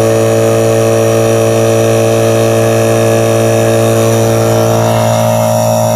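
VEVOR 8-gallon, 1 HP oil-free air compressor running just after switch-on, its motor and pump making a loud, steady drone as it pumps up the tank.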